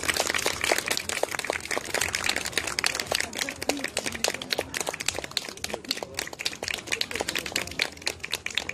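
A small audience applauding, with individual claps audible as an irregular patter that thins out slightly toward the end.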